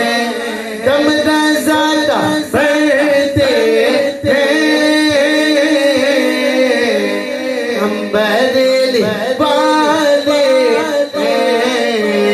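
Devotional vocal music: a voice sings a winding, ornamented melody over a steady held drone, with no words picked out by the recogniser.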